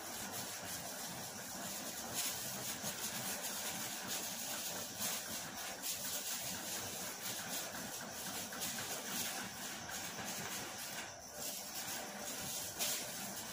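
Steady hiss of kitchen background noise, with faint soft rustles from plastic-gloved hands shaping dough.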